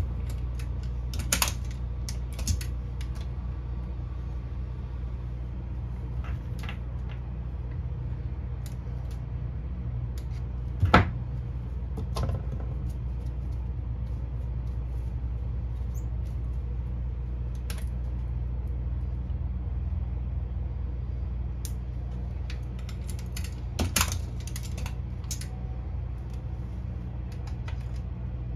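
Scattered clicks and snaps from hand-handling fiber-prep tools (fiber holder, cleaver) and the fusion splicer's clamps as a fiber is re-prepared, over a steady low hum. One sharp snap comes about a third of the way in, and a cluster of clicks comes near the end.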